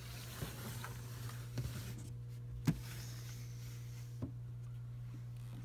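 A few light knocks and clicks of a plastic snake enclosure being handled, over a steady low hum.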